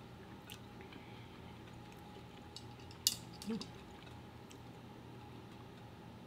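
Faint clicks and taps of chopsticks and a drinking cup during a straw sip, with one sharper click about three seconds in and a brief low hum just after.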